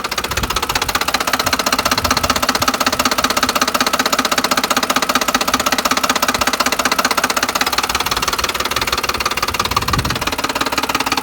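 2010 Ford F-150's 4.6-litre three-valve V8 idling with a loud, rapid, steady knocking. The knock came on together with a flashing check engine light, and the owner does not know its cause.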